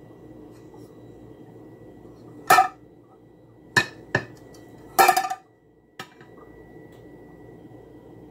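Metal pan and its engraved lid clanking as they are handled: a ringing clank about two and a half seconds in, two quick knocks near four seconds, a longer ringing clank around five seconds, and a light tap at six.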